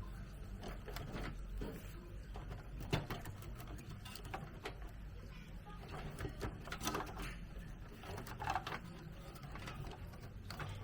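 Cable ties and power-supply cables being handled inside a desktop PC case: scattered plastic clicks and rustles over a steady low hum.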